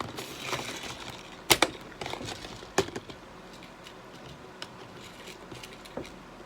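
Hands handling ice-fishing tackle: rustling, then two sharp clicks about a second and a half and three seconds in, followed by a few lighter ticks.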